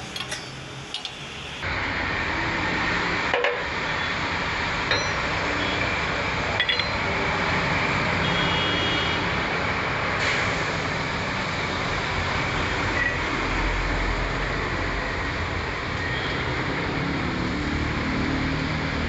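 Steady road traffic and vehicle noise, with a few brief metal clinks.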